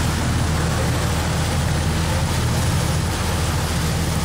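Sightseeing cruise boat under way: a steady low engine drone under a loud, even rush of wind and water noise.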